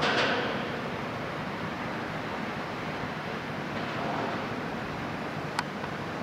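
Steady rush of water and wind as a large ferry's hull slides past close by, with a louder surge at the very start and one sharp click near the end.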